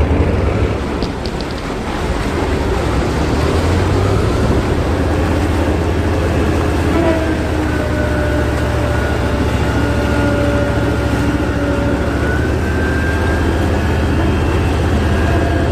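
Heavy engine of an amphibious bridging vehicle running steadily as it motors through river water, a constant low drone. A faint whine joins it from about seven seconds in.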